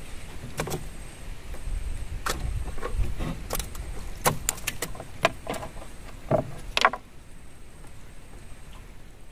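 Scattered sharp clicks and knocks of fishing gear being handled in the bottom of a small wooden boat, the loudest a pair about seven seconds in, after which it goes quieter.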